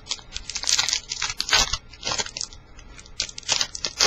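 A foil trading-card pack wrapper being torn open and crinkled by hand: a run of irregular crackles and rustles.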